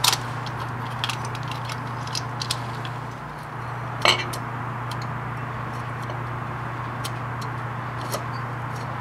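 A few light metallic clinks as a Harley-Davidson Evolution engine cylinder is handled and slid down over its studs onto the crankcase, the sharpest about four seconds in, over a steady low hum.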